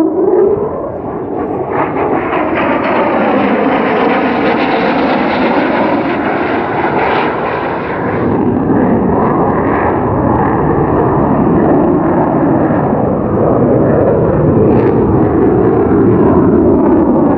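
Lockheed Martin F-35A Lightning II flying overhead, its single Pratt & Whitney F135 jet engine giving a loud, continuous roar. The roar drops slightly about a second in, then builds. A slow wavering sweep rises and falls in pitch as the jet passes.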